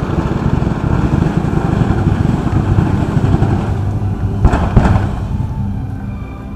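Fireworks going off in a dense, continuous barrage of low bangs and crackling, with two sharper bangs close together about four and a half seconds in.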